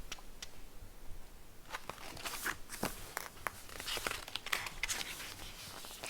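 Faint paper rustling with small scattered clicks, typical of a picture book's pages being handled and turned.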